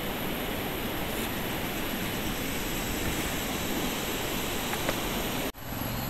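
Steady rushing of river water, an even noise with no breaks. It cuts off abruptly about five and a half seconds in and gives way to a much quieter outdoor background.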